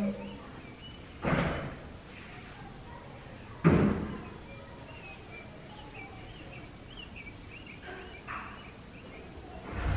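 Background noise with no speech: a sudden thud about a second in and another a couple of seconds later, then faint high wavering chirps, and a third thud at the very end.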